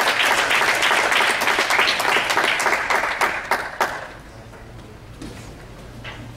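Audience applauding, thinning to a few last separate claps and dying away about four seconds in.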